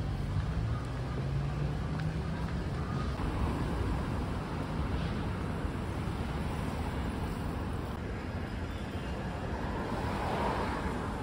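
Steady vehicle noise: an even rushing, with a low hum in the first few seconds.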